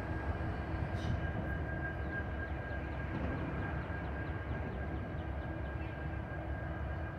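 Distant diesel locomotives idling: a steady low rumble with a thin, steady high whine over it, and a single sharp click about a second in.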